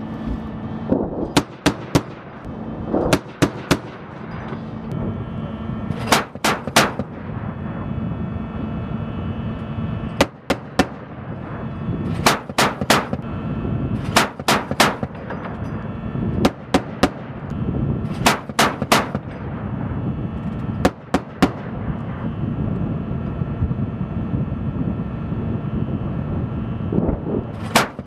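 Automatic gunfire from an eight-wheeled light armored vehicle's mounted weapons, in short bursts of two to four shots repeating every few seconds, over the steady running of the vehicle's engine.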